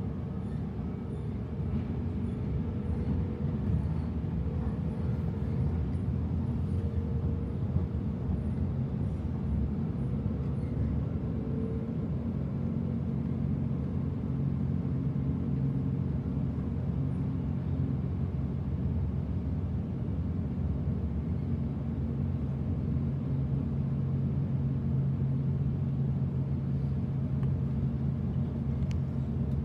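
Sydney Trains Millennium electric train running, heard from inside the passenger car as a steady rumble. A higher motor hum sits over it for the first dozen seconds and then fades.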